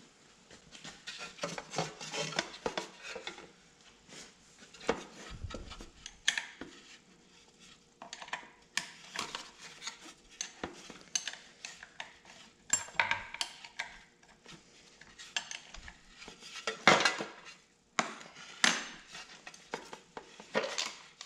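Wrench clinking and scraping on metal while the M10 bolts holding a riding mower's engine cooling fan are broken loose and turned out: irregular metallic clicks and rattles, with a few louder clanks near the end.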